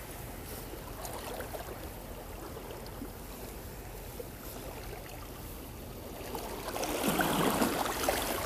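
Steady wash of seawater lapping against the rocks of a stone seawall, with a louder rush of noise over the last second or two.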